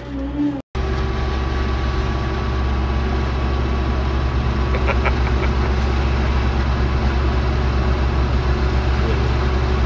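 Off-road vehicle's engine running at a steady speed, a low even drone with no change in revs.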